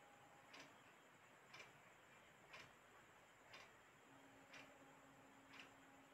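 Near silence with faint, even ticks about once a second.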